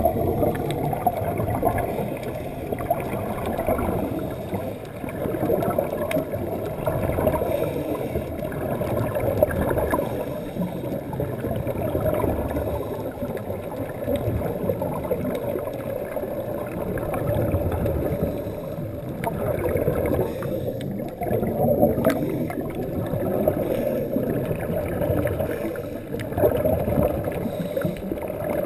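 Muffled underwater rushing and bubbling through a GoPro's waterproof housing, with scuba divers' exhaled bubbles, swelling and fading every few seconds.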